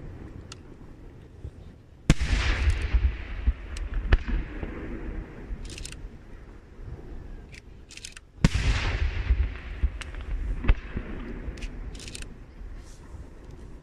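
Aerial firework shells bursting in a night display: two heavy booms, about two seconds in and again at about eight and a half seconds, each followed by a long rolling rumble, with sharp single cracks in between.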